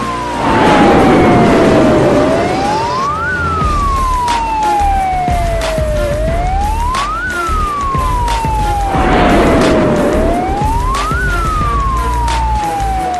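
Ambulance siren wailing: each cycle climbs quickly in pitch and then falls slowly, repeating about every four seconds. A rush of noise swells twice, about a second in and again about three-quarters of the way through.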